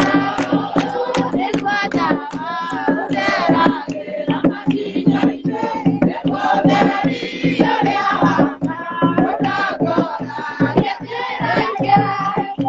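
A congregation singing a hymn together, led by women's voices, with rhythmic hand clapping and a hand drum beating time.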